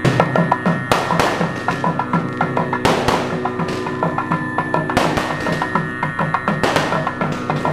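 Temple festival percussion ensemble playing: fast, even drumming with a loud crash about every two seconds over steady held tones.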